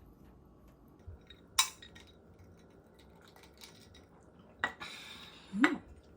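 Tableware being handled at a meal: a sharp clink of a dish or utensil about a second and a half in, another click later, and a short rustle, with a brief rising sound near the end.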